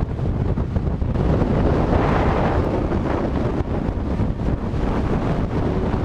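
Wind buffeting the microphone of a moving motorcycle, a steady rushing noise that swells about a second in, with the bike's road noise beneath.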